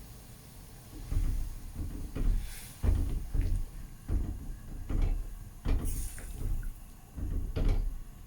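Kitchen utensil knocking and scraping against a cooking pot while stirring the gulai, in irregular knocks about once or twice a second.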